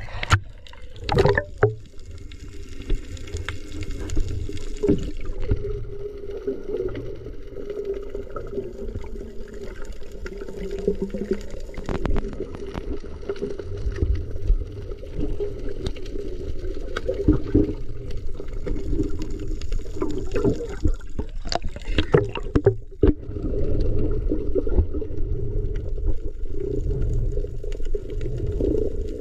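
Underwater ambience heard through a camera housing while spearfishing over a reef: a muffled low rumble with a steady low hum, scattered clicks and crackles, and a few sharper knocks and splashy bursts, the loudest about a second in and around twenty-two seconds in.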